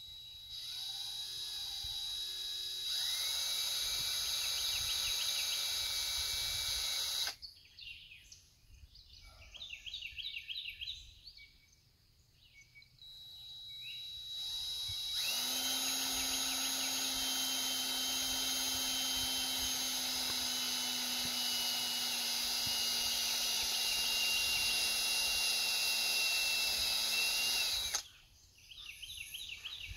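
Dump trailer's electric hydraulic pump motor running in two long steady runs, about four seconds and then about thirteen seconds, to push out the cylinder ram, its pitch sagging slightly under load in the second run.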